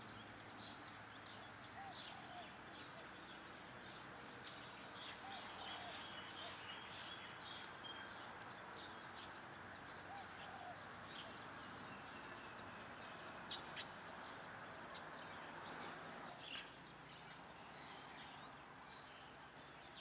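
Quiet outdoor ambience with scattered short bird chirps and a few soft calls, over a faint steady high tone that stops near the end.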